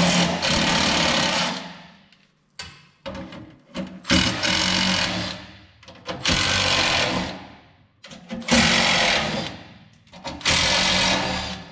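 Cordless power driver with a 5/16 socket running in repeated bursts of one to two seconds, each trailing off, as it backs out the screws holding the truck's lights.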